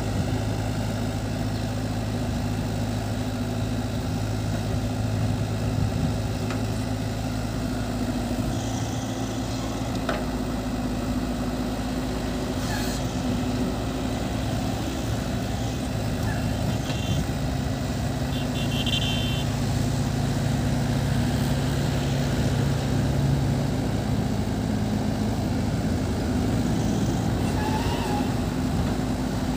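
Cat 313 excavator's diesel engine running steadily under hydraulic load as it digs and swings to load a dump truck, its note shifting a little as the work changes.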